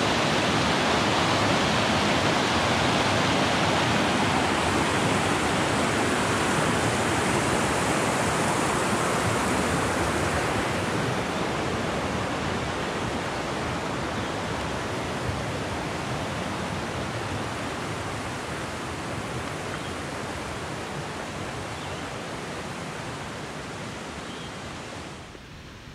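Mountain creek rushing over rocks: a steady wash of water that slowly fades, then drops off suddenly near the end.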